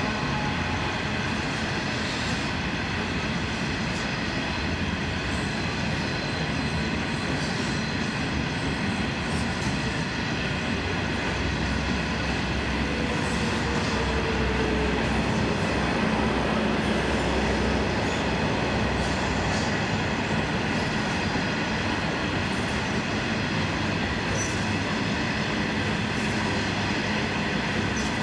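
A train rolling steadily past on the track, its wheels running over the rails with a continuous rumble and some clicking and faint squealing.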